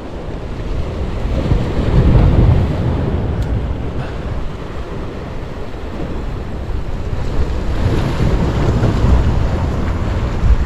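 Sea surf surging and washing against the concrete blocks of a breakwater, with wind buffeting the microphone. The surge swells about two seconds in and again near the end.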